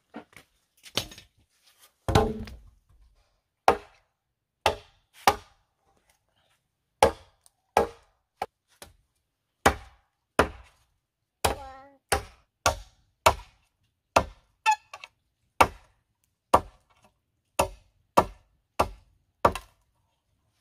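A machete chopping into a green wooden pole on the ground: sharp single blows at an uneven pace, roughly one to two a second, with a heavier thump about two seconds in.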